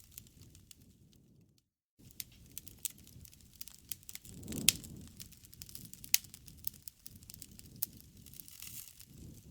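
Wood fire crackling with frequent sharp pops over a low rush of flame, the loudest pop about halfway through; the sound cuts out completely for a moment near the start.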